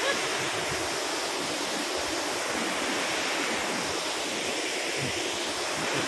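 Steady, even rush of a waterfall pouring down a rock face.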